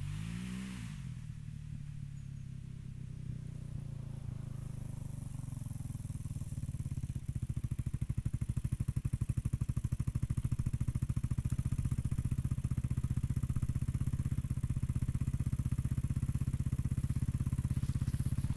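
Engine of a Raptor 600 off-road machine running out of sight, growing louder over the first several seconds as it draws near, then running steadily close by with an even pulsing beat.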